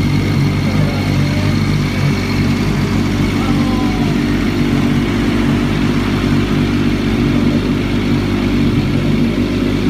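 MV Agusta F3 race bike's three-cylinder engine idling steadily, warming up after its first start of the day.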